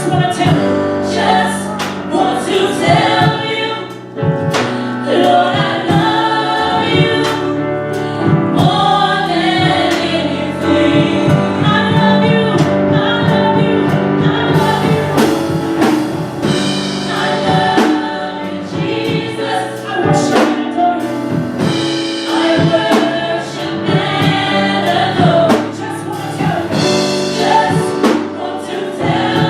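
Gospel choir singing with instrumental accompaniment, a steady beat of drum or percussion strokes running under the voices.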